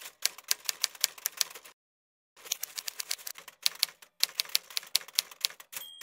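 Manual typewriter keystrokes clacking in three quick runs with two short pauses between them, ending with a brief ring of the carriage-return bell.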